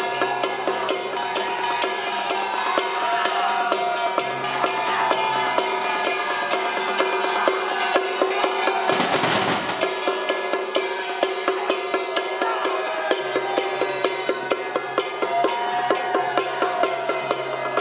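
Traditional Taiwanese temple-troupe music: drums and cymbals keep a steady, fast beat under a melody, with a brief loud crash about halfway through.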